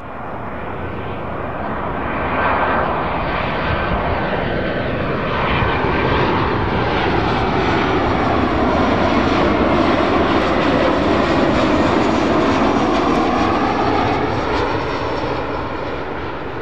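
Boeing 737 airliner on final approach with its landing gear down, passing close by: its jet engine noise swells over the first two seconds, stays loud through the middle, and eases slightly near the end.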